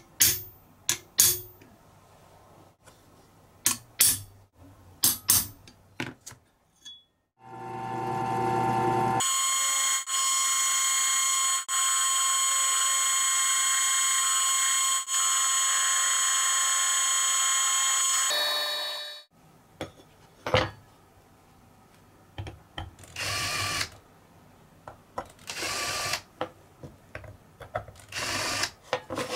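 A handful of sharp hammer taps on a centre punch marking a steel flat bracket, then a STAX TOOLS 303 benchtop drill press starts up and runs about ten seconds with a steady whine while its bit drills the bracket, and spins down. A few short noisy bursts follow near the end.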